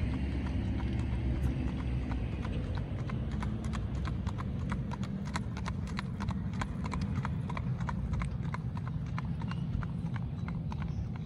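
A ridden horse's hooves clip-clopping in a quick, even rhythm as it passes, loudest in the middle and fading near the end, over a steady low rumble of wind on the microphone.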